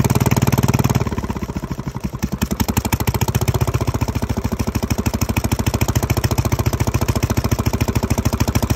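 Detroit Diesel 2-71 two-stroke, two-cylinder supercharged diesel running with its rocker cover off, a rapid, even pulsing beat that eases slightly about a second in. It is running again after a couple of stuck injectors were freed.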